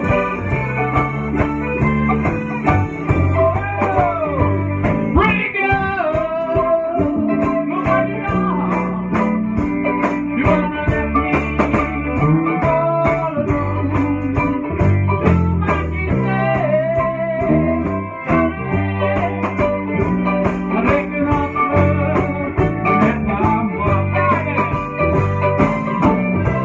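Live band playing a folk-rock tune together: accordion, fiddle, mandolin and electric guitars over drums, with steady regular drum and cymbal hits and some sliding melody lines.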